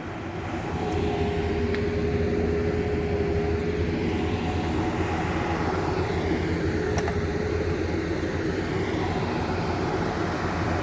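Excavator's diesel engine running under load, with a steady whine over the engine note. It grows louder over the first second, then holds steady.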